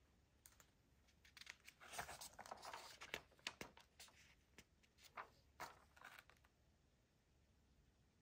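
Faint rustling and a string of light clicks and taps as items and packaging are handled, busiest between about one and six and a half seconds in.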